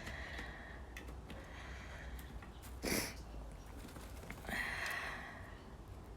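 Pet bird eating, with scattered faint pecking clicks, one short sharp burst about three seconds in and a brief higher-pitched sound about four and a half seconds in.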